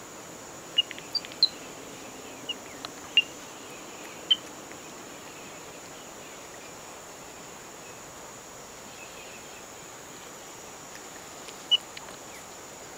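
Outdoor forest background with a steady high hiss. About half a dozen brief, high-pitched animal chirps stand out, bunched in the first few seconds, with one more near the end.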